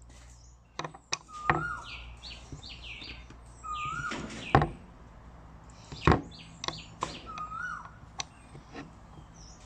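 Birds calling repeatedly, a short rising-and-falling whistle every few seconds among higher chattering notes, with several sharp metal clicks as a steel bolt and washer are knocked against the jaws of combination pliers. The two loudest clicks come about halfway through.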